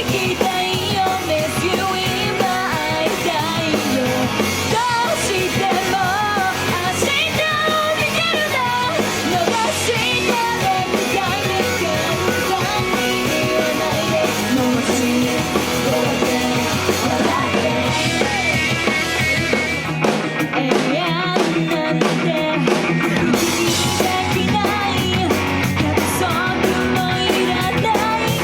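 Pop-rock song with a singer's voice over drums and electric guitar, played loud through a stage PA system during a sound check. The bass drops out for a few seconds about twenty seconds in.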